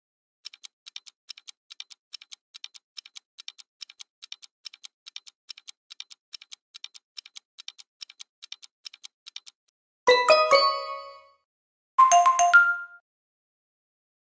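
Quiz countdown-timer sound effect: rapid, steady clock-like ticking that runs for about nine seconds and then stops. A bright multi-note chime follows, and a second, shorter chime comes about two seconds later.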